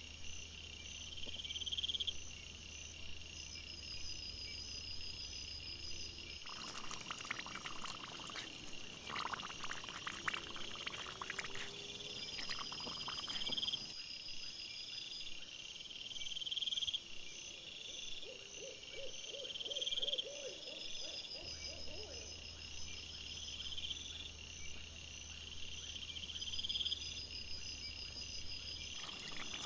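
Night insects chirping in a regular repeating pattern, short high chirps every second or two. Through the middle there is a stretch of rustling and scuffling as wild boar root in the dirt, and about two-thirds of the way through comes a brief run of rapid low pulses.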